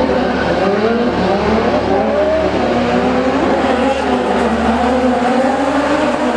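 Engines of several modified Opel stunt cars, each with a 1300 cc motorcycle engine, revving up and down, their pitches gliding over one another, with tyres squealing.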